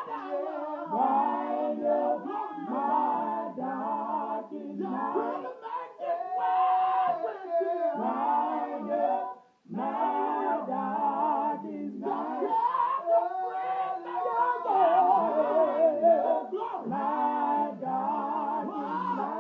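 A small mixed gospel group of men and women singing a cappella in harmony, in phrases, with a brief pause about halfway through.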